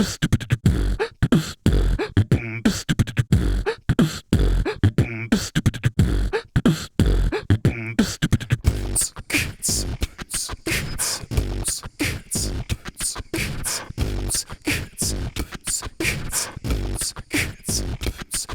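Beatboxed 'boots and cats' rhythm: a repeating pattern of deep kick-like 'boots' and sharper snare-like 'cats'. About halfway through, a busier run of quick hissing hi-hat-like ticks joins in.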